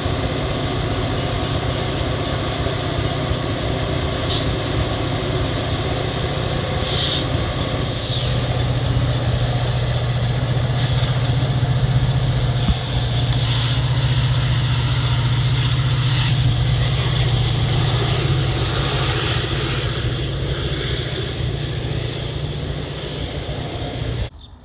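Metra F40PH diesel locomotive's 16-cylinder EMD engine running with a steady low drone that grows louder about eight seconds in as the commuter train pulls away, with a few faint clicks. The sound cuts off suddenly near the end.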